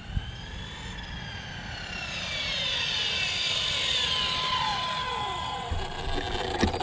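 Team Corally Kronos XP 6S brushless 1/8 monster truck whining at full speed as it comes in, growing louder. Its whine then falls in pitch as it slows down.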